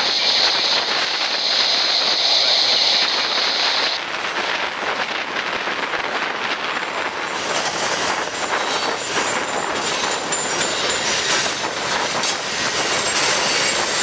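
Cars of a mixed freight train rolling past on the rails, a steady clatter of wheels with frequent short clicks, in strong wind. From about halfway through, a thin high squeal from the wheels rides over it.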